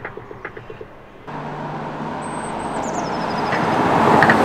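Mercedes-Benz CLS 350d diesel, fitted with an active sound generator that plays an artificial V8-style engine sound, driving past: the sound cuts in suddenly about a second in, grows louder to a peak near the end as the car passes, then begins to fade.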